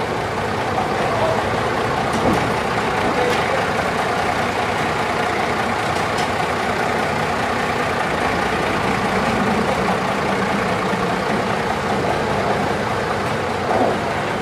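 Small narrow-gauge diesel locomotive's engine running steadily as it moves slowly on the yard tracks, with a few faint clanks.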